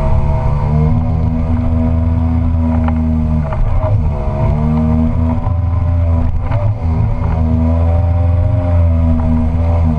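Tohatsu M50D2S two-stroke outboard with a water-jet unit, pushing an inflatable boat upstream through a shallow rapid. It runs at steady high revs, and the pitch dips briefly and comes back up about three and a half seconds in and again near seven seconds.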